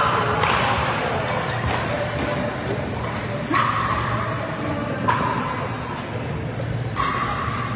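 Pickleball paddles striking a plastic pickleball: four sharp pocks, each with a brief ring, spaced one to two seconds apart, over a steady low hum.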